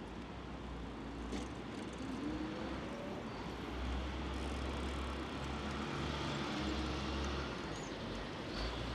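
City street traffic: motor vehicles passing with a low engine rumble that swells about four seconds in.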